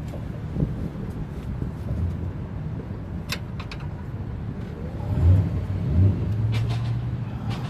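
Low rumble of a car engine running, louder from about five seconds in, with a few faint sharp clicks.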